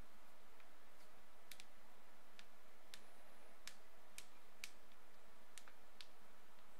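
Room tone: a steady faint hiss with a dozen or so faint clicks at irregular intervals.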